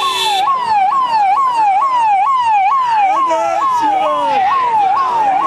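Police car siren sounding a fast electronic wail: each cycle jumps up quickly, then falls, about twice a second.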